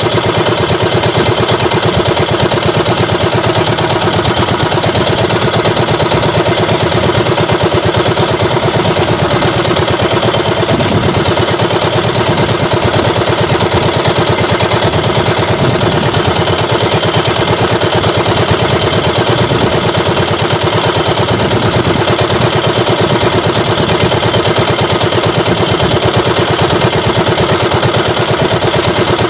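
Outrigger fishing boat's engine running steadily at idle, loud and close, with a fast even beat.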